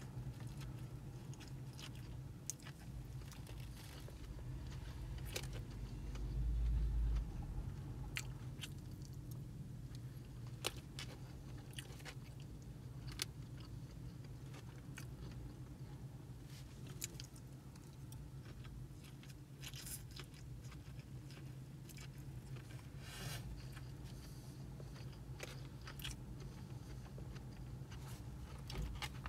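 A man chewing mouthfuls of chow mein, with short clicks of a plastic fork on a foam takeout container scattered throughout, over a steady low hum. A brief low rumble, the loudest sound, comes about six seconds in.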